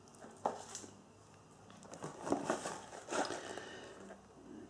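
Small cardboard firework packets being handled in and around a cardboard shipping box: a sharp tap about half a second in, then a spell of rustling and scraping of packaging.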